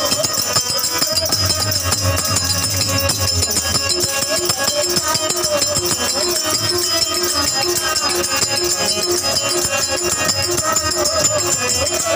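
Live devotional bhajan music played on a harmonium and a dholak drum, with a voice singing over held harmonium notes and a steady rattling percussion beat.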